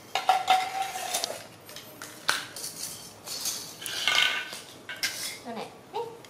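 Hard plastic toys clicking and clattering on a tile floor as toy fish and toy fishing rods are picked up and set down, in a string of separate knocks.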